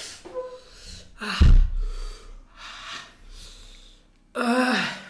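A man gasping and blowing out hard, hissing breaths to cool a mouth burning from hot chilli: three loud breathy exhalations, the last one near the end turning into a voiced, falling groan.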